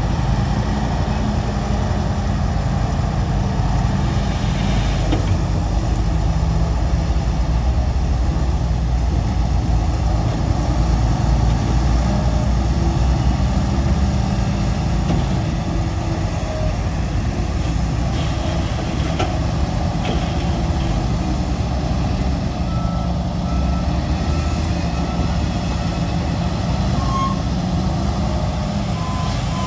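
Heavy diesel earthmoving machinery running steadily under work. A reversing alarm gives a few short beeps about two-thirds of the way through.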